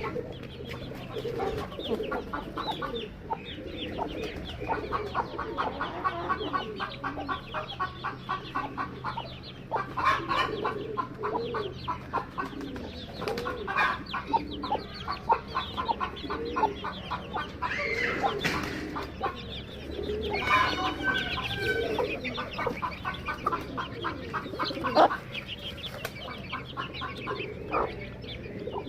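Farm fowl clucking steadily, with runs of quick, evenly repeated calls.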